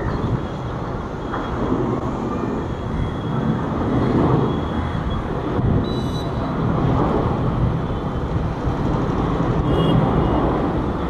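Boeing 787-10's Rolls-Royce Trent 1000 turbofans at take-off power as the jet climbs away after lift-off: a steady deep rumble that swells a little partway through.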